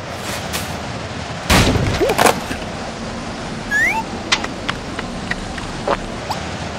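Cartoon sound effects of a strong wind rushing steadily, with a loud wooden crack about one and a half seconds in as a board splits apart. Short rising squeaks and a few light taps follow.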